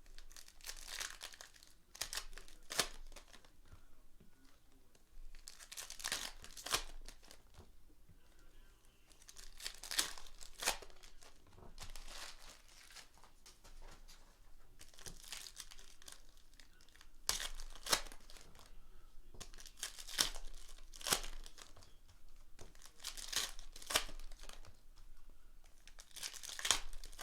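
Trading card packs being torn open by hand, with foil wrappers tearing and crinkling in repeated bursts every few seconds, each with a few sharp crackles.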